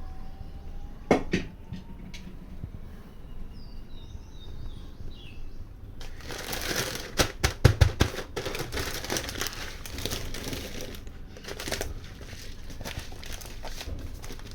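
Plastic packaging crinkling and rustling as it is handled, in a dense crackly run starting about six seconds in, after two short knocks near the beginning.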